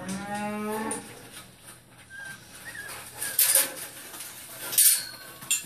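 Animal sounds from a noise-conditioning sound-effects CD played over a speaker to young puppies. A pitched, dog-like call with overtones comes first, then a string of shorter animal sounds and brief high squeaks, cut off abruptly twice between tracks.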